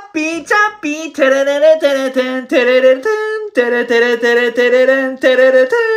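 A single high voice singing a melody without accompaniment: quick short notes at first, then longer held notes.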